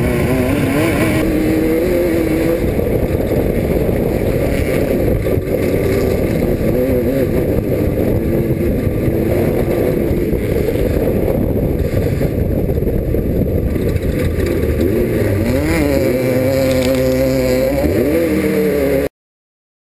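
Off-road race car engine running hard, its pitch rising and falling with the throttle, with a few quick rev swings near the end. The sound cuts off abruptly about nineteen seconds in.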